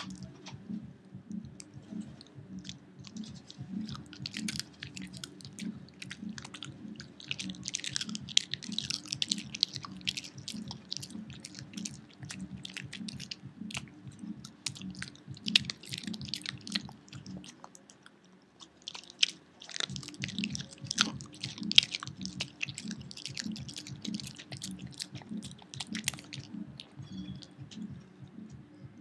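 Pekingese dog chewing a rawhide treat: steady rhythmic chewing with bursts of crunching and clicking, with a brief pause a little past the middle.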